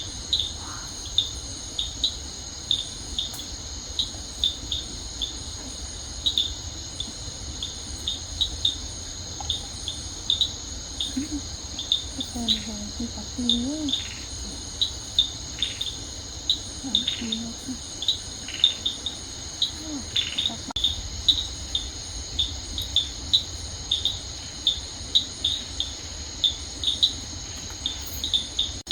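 Insect chorus: a steady high-pitched drone with many short, sharp chirps over it, as from crickets.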